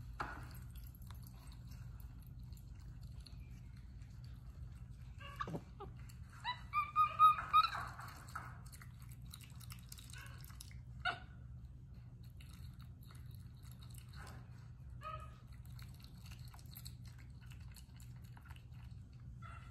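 A monkey gives a quick run of about five short, high chirping squeaks about a third of the way in. A single sharp click follows a few seconds later, over a faint low hum.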